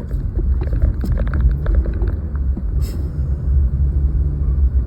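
Toyota Corolla driving slowly on a snow-covered road, heard inside the cabin: a steady low rumble of engine and tyres. Scattered small ticks in the first two seconds and a brief swish about three seconds in.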